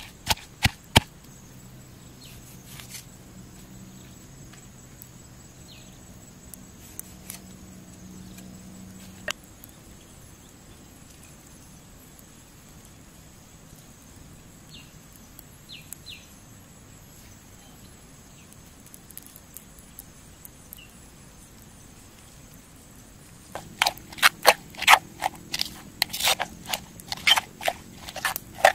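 Stone pestle pounding chillies in a stone mortar, a few sharp knocks about three a second, then a long lull with only faint background. Near the end, quick knocks and scrapes of a metal spoon mashing the chilli paste against the stone mortar, about three a second.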